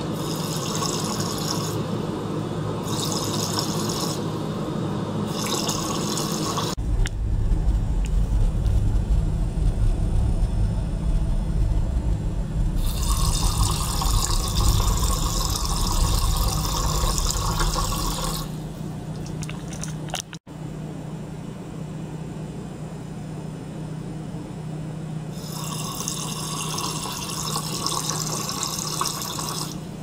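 Small circulation pump running with a steady hum while water pours from its tubing into a plastic tank. The higher splashing noise comes and goes in spells of a few seconds. A deeper rumble sets in about seven seconds in and fades about eighteen seconds in, and the sound breaks off for an instant about twenty seconds in.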